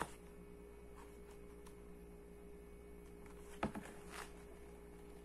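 Pages of a hardcover book being turned and handled, with soft paper rustles and a sharp tap or page snap about three and a half seconds in, over a faint steady hum.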